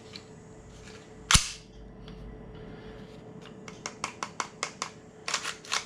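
Unloaded Umarex H&K USP gas blowback airsoft pistol being worked by hand. There is one loud, sharp metallic clack about a second in, then a quick run of light clicks and a few louder clacks near the end from its slide and controls.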